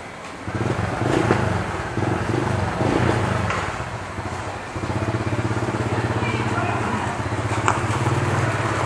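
Honda PCX scooter's single-cylinder engine running as the scooter is ridden in at low speed and draws close. Its note varies for the first few seconds, then settles into a steady, even putter from about halfway.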